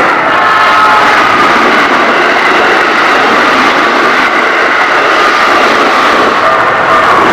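A train passing close by at speed: a loud, steady rush with a whine from its electric motors that glides slightly down in pitch.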